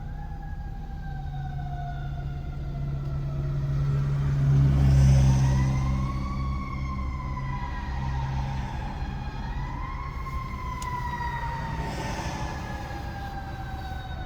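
A fire truck's siren wailing in slow rising and falling sweeps as the truck passes close by, its heavy engine rumble swelling to loudest about five seconds in and then fading.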